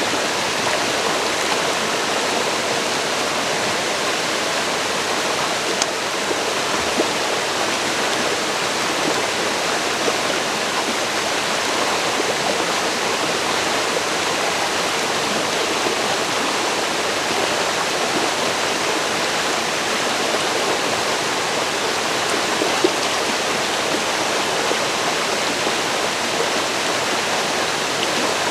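Forest river flowing steadily over rocks, a continuous rushing of water with small splashes now and then.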